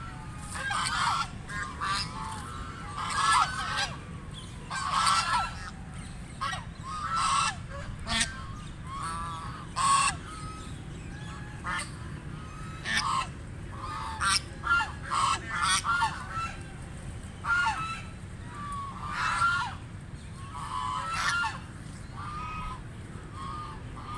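White domestic ducks quacking: many short, loud calls in irregular bouts, over a steady low background noise.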